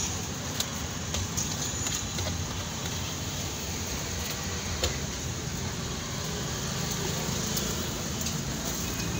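Steady street traffic noise with a low rumble, and a few sharp clicks now and then.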